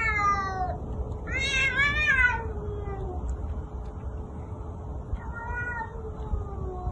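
Cats yowling at each other in a face-off, the drawn-out threat calls of a fight about to start. There are three long calls: one falling in pitch at the start, a wavering one about a second and a half in, and a lower, falling one near the end, over a faint steady low tone.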